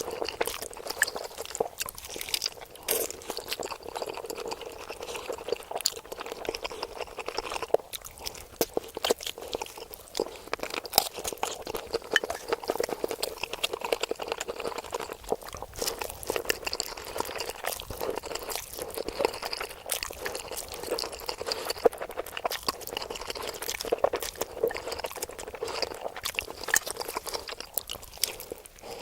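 Close-miked eating sounds: a continuous run of wet chewing, smacking and slurping, with crisp crunches mixed in.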